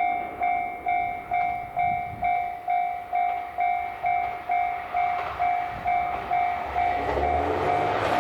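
Japanese railway level-crossing warning bell ringing steadily, an electronic ding repeating about twice a second. Near the end, an approaching train's rumble rises beneath it.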